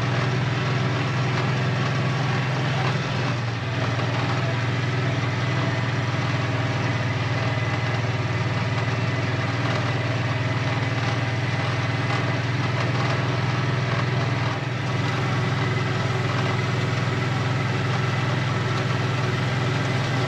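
A vehicle engine running steadily at low speed, an even hum with small dips in level twice, about three and a half seconds and about fifteen seconds in.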